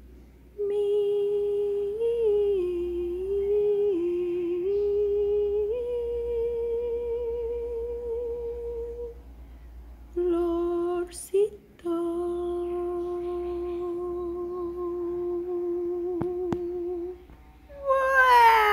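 A person humming long, held notes with a slight wobble, stepping between a few pitches, then pausing briefly about ten seconds in before one long steady note. Near the end a louder vocal tone slides downward.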